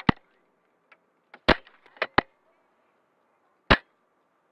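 Airsoft guns firing: about five sharp, short cracks at uneven intervals, two of them close together in the middle.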